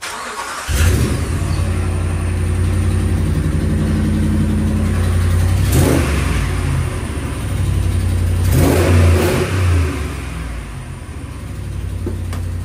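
2014 Ram 1500 engine cranking and catching on a cold start, then running with loudness that swells briefly about six and nine seconds in. Running cold, it has an audible exhaust leak at the manifold, where a manifold bolt has broken off; the owner says the noise goes away once the engine warms up.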